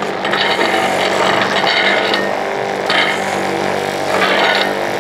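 Leenova electric juice machine running with a steady motor hum, its grinding rising and falling in rough surges as vegetables are pressed through.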